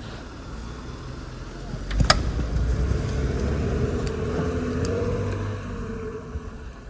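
Jeep engine revving up and pulling under load during a kinetic-rope snow recovery. There is a sharp snap about two seconds in, and the engine holds high for a few seconds before easing off.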